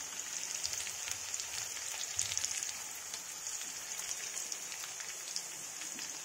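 Green garlic leaves, kasuri methi and jakhya seeds sizzling in hot oil in a steel kadhai: a steady hiss with many small pops and crackles as the tempering fries.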